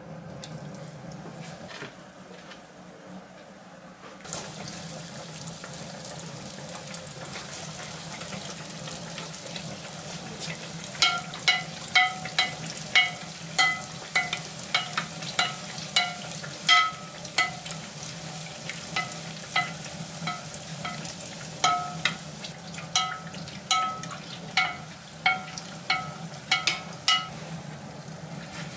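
Potato-dough donuts frying in hot vegetable oil: a steady sizzle that starts suddenly about four seconds in. From about eleven seconds on, a metal utensil clinks against the pan with a short ringing note, about twice a second, as the donuts are turned.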